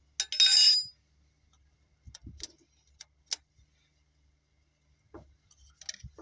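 Steel hand tools clinking against the rocker arms and head of a stopped Cummins NT855 diesel during tappet setting. There is a loud ringing metal jangle just after the start, then a few short, sharp taps and knocks spread through the rest.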